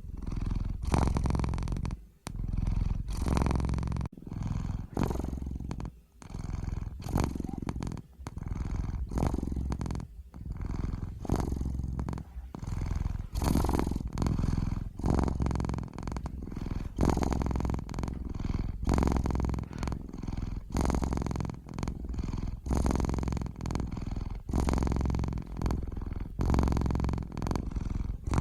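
Domestic cat purring in a steady rhythm. Each breath in and each breath out lasts about a second, with a brief dip in between.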